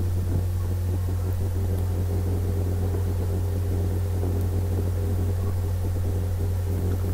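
Steady low hum with no change in pitch or level: the background noise of the recording setup.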